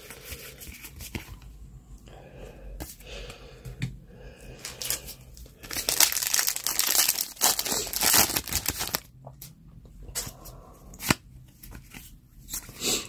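Foil booster-pack wrapper of a Pokémon trading card pack being torn open and crinkled, loudest for about three seconds from around six seconds in, with quieter rustling of the cards being handled before and after.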